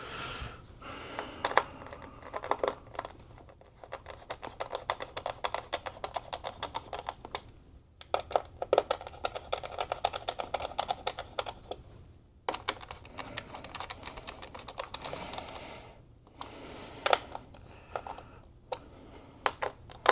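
Small screws being driven with a hand screwdriver while the iMac's cooling fan is fastened back in: runs of rapid, light clicking lasting several seconds each, with short pauses between them.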